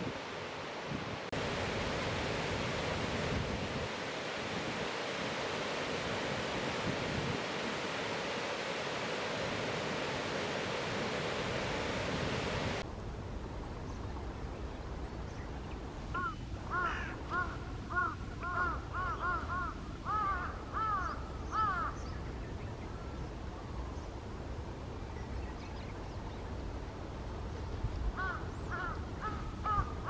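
Black kite's whistling call, a quavering run of short rising-and-falling notes repeated several times a second, sounding for about six seconds past the middle and again briefly near the end. Before it, a steady rushing noise.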